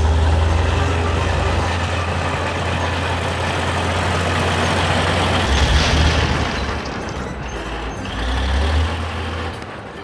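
Cartoon sound effects of a wheeled excavator's engine, a deep rumble under dense clattering noise, as a hillside breaks apart into blocks of rock. The noise grows brighter about five and a half seconds in.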